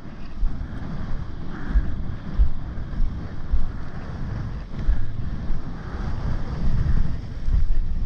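Strong gusting wind of about 30–40 knots buffeting the microphone: a rough, low rumble that swells and drops with each gust.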